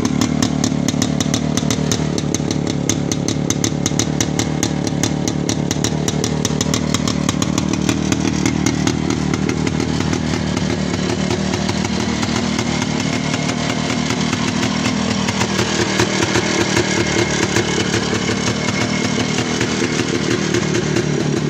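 ČZ 175 type 505 cargo scooter's 175 cc single-cylinder two-stroke engine running steadily, freshly revived after standing for years.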